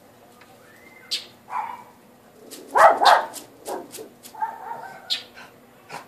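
Bird's sharp, repeated alarm calls while mobbing a cat: short high chips mixed with harsher scolding calls, the loudest a pair about three seconds in.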